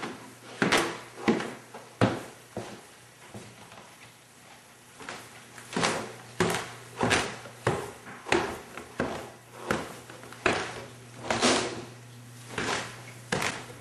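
A run of short knocks and bumps from someone searching through a dark house: footsteps on a hard floor and the opening and shutting of doors, drawers and cupboards. They come about two a second through the middle and thin out for a couple of seconds early on, over a faint steady hum.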